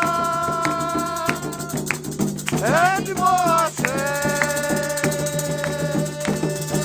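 Candomblé devotional chant: a voice holds long sung notes, sliding up into a new note about a third of the way in. A shaken rattle and hand drums keep a steady rhythm underneath.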